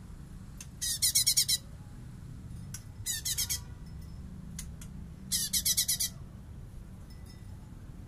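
Blue-winged leafbird (cungkok) singing three short bursts of very rapid, buzzy rattling notes, the 'bessetan' phrase, each under a second long: about a second in, at about three seconds, and again at about five and a half seconds.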